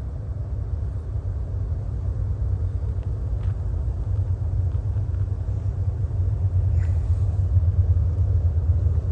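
Diesel locomotive working at the rear of a long BNSF freight train, a trailing distributed-power helper unit, heard as a steady low drone that grows gradually louder toward the end.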